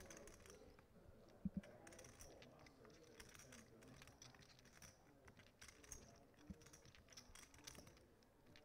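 Near silence at the poker table, with faint scattered clicking of poker chips. Two short thumps close together about a second and a half in, and another near six and a half seconds.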